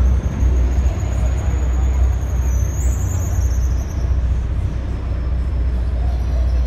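Boat engine running steadily, a continuous low rumble.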